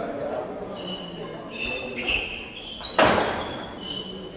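Sports shoes squeaking on a hall court floor, and about three seconds in a single sharp crack of a badminton racket hitting a shuttlecock, echoing around the large hall.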